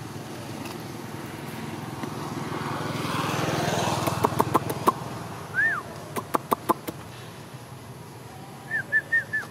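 An engine passing, growing louder to a peak about four seconds in and then fading. Over it come two quick runs of sharp clicks, the loudest sounds, then a short high chirp and, near the end, four quick high chirps.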